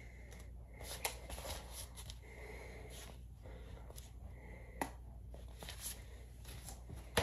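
Faint rustling and handling of a vinyl record's cardboard album sleeve as it is turned over and moved, with a couple of sharp clicks, one about five seconds in and one at the end.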